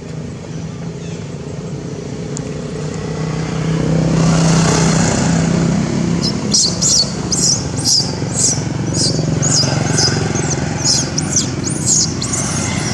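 A motor vehicle's engine hum on the road, swelling to its loudest about four to five seconds in and then staying up. From about halfway through, a rapid series of short high-pitched squeaks, roughly two to three a second, sounds over it.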